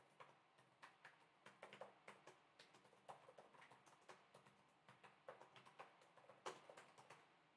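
Faint, irregular clicking of typing on a laptop keyboard, with one slightly louder click about six and a half seconds in.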